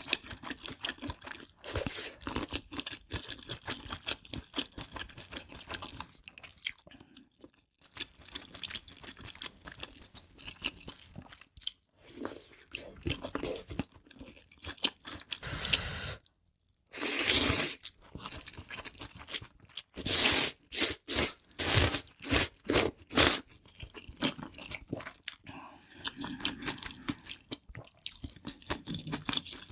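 Close-miked eating sounds: a person biting and chewing crunchy food, with dense runs of loud crunches about halfway through and again a few seconds later.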